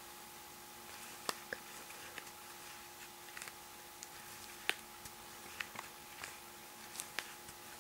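Faint scattered ticks and soft rustles of a metal crochet hook working yarn into single crochet stitches, over a faint steady hum.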